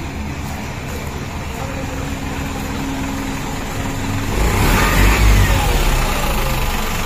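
A motor vehicle engine running steadily. From about four seconds in it gets much louder and deeper for a couple of seconds, then eases off.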